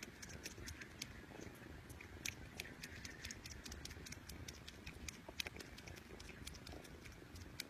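A cat grooming, licking its paw: a run of quick, irregular licking clicks over a faint, steady low purr.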